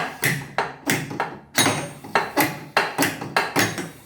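Back of a hammer striking a stuck mixer tap head about a dozen times, roughly three blows a second, some with a short metallic ring, to knock the head loose from years of buildup.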